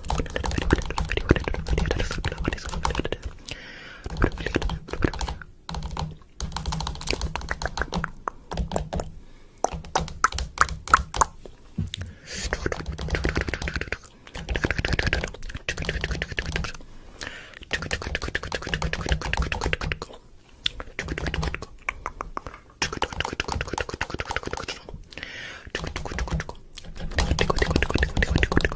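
Rapid clicking and tapping in bursts of a few seconds each, with short pauses between.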